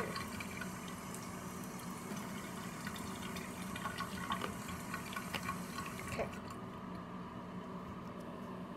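Water running into a plastic contact lens case as it is filled, stopping about six seconds in, with a few light clicks of the case being handled.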